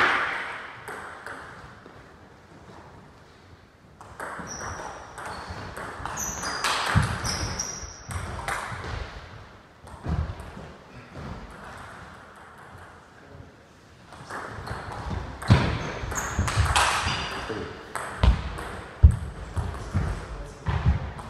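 Table tennis ball clicking back and forth off rackets and table in quick rallies, two stretches of play with a quieter lull between points in the middle.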